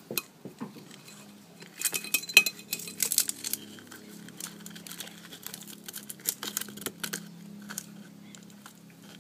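Clinking and scraping of hard pieces against a dish while a sea urchin is being cleaned, with a dense run of clinks about two seconds in. A steady low hum runs underneath.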